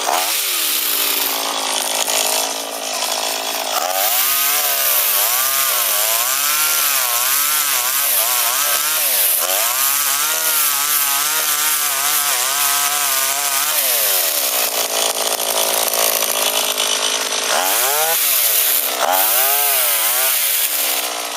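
Small engine of a motorized oil palm cutter running fast, its pitch rising and falling over and over, about once a second, with steadier stretches in between.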